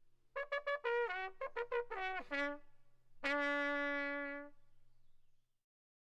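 A short trumpet phrase: a quick run of notes, several bending down in pitch at their ends, then one long held note that fades out.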